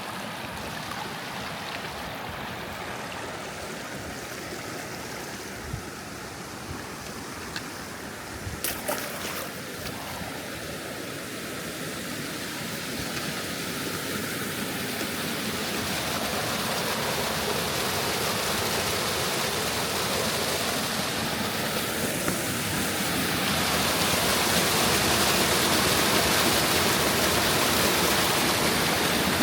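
Steady rush of flowing creek water, growing louder through the second half. A few light knocks come about nine seconds in.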